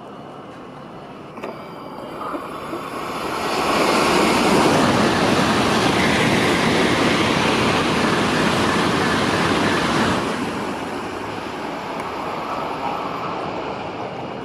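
Tokaido Shinkansen train passing through the station at speed without stopping: a rushing roar that builds over a couple of seconds, stays loud for about six seconds while the train goes by, then dies away.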